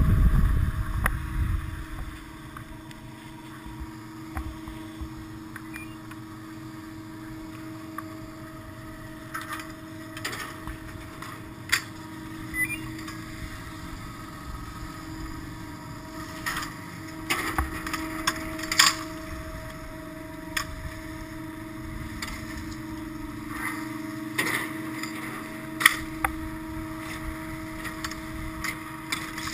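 Steady hum of a Poma surface lift's station machinery, with scattered sharp clacks and knocks. A rush of wind fades out in the first two seconds as the skier stops.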